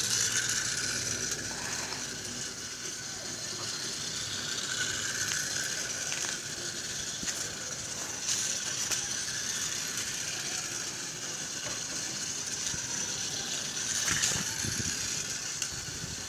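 Toy car's small motor and plastic gear train whirring steadily with a fine rapid ticking as the toy runs and rotates.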